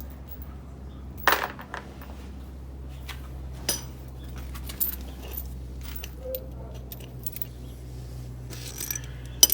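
Scattered metallic clinks and clicks of screws and hand tools being handled, a few sharp ones several seconds apart, over a low steady hum.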